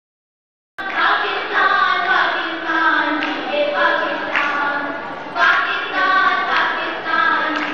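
A group of voices singing a song together, starting suddenly about a second in after dead silence.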